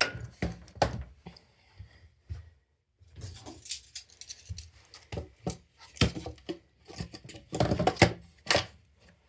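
Metal hand tools clinking and knocking as they are handled and set down, a run of separate knocks with a short pause about two seconds in.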